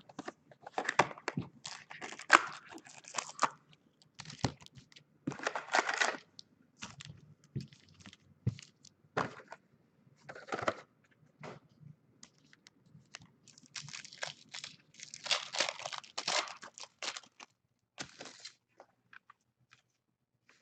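Plastic and foil packaging of a box of trading cards being torn open and crinkled, in irregular bursts of tearing and crackling with sharp clicks between. It grows quieter over the last couple of seconds.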